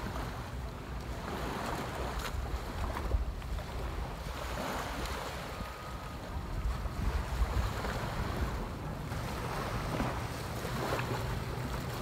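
Surf washing onto a sandy beach, the noise swelling and falling back wave after wave, with wind buffeting the microphone as a low rumble.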